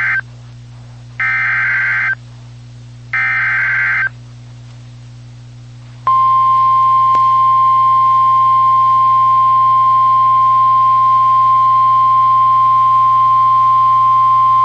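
Emergency Alert System SAME header data bursts: the end of one and then two full bursts of about a second each. After a short pause, the steady single-pitch 1050 Hz NOAA Weather Radio warning alarm tone starts and holds for the rest of the time, over a low steady radio hum.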